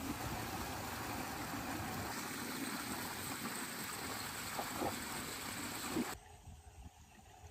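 Steady rushing noise of heavy rain and running water, cutting off suddenly about six seconds in to a much quieter background.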